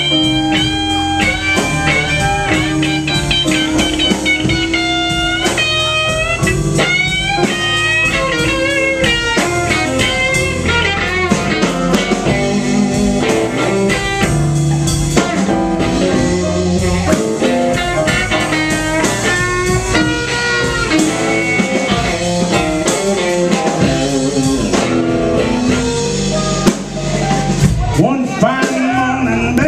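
Blues band playing live with no vocals: an electric guitar lead with bent notes over electric bass, drum kit and keyboard.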